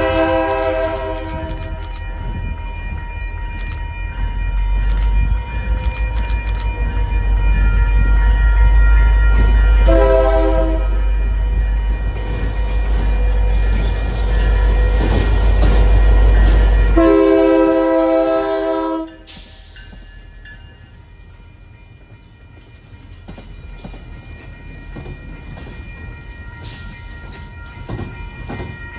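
MBTA GP40MC diesel locomotive passing close, its horn sounding three times: briefly at the start, again about a third of the way in, and a longer blast about two-thirds in. Under the horn the locomotive's engine gives a heavy low rumble that cuts off suddenly just after the last blast. After that the quieter rolling noise of the rest of the train goes on, with scattered clicks.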